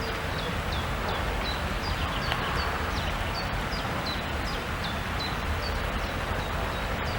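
Steady rain falling, heard as an even hiss. A regular series of short high chirps, about three a second, repeats over it.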